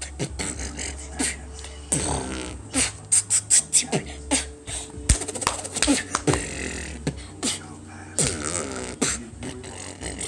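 Beatboxing: mouth-made percussion of sharp clicks and hissing snare-like hits, with a quick run of rapid clicks and several falling vocal sweeps.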